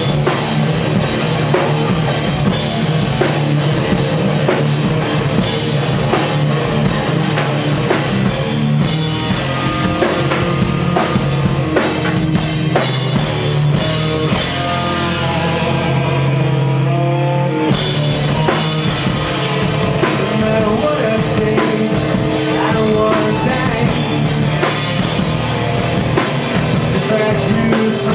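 Live rock band playing loud, with electric guitars and a drum kit. Around the middle the drums and cymbals drop out for a few seconds while the guitars carry on, then the full band comes back in suddenly.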